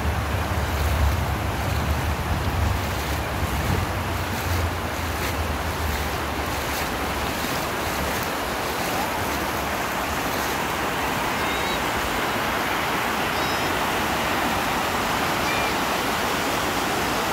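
River water rushing steadily over a low weir in a broad sheet. Wind buffets the microphone for about the first eight seconds.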